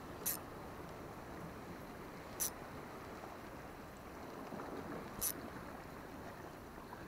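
Steady wash of sea water at the shore, with a short sharp high tick three times, about two and a half seconds apart.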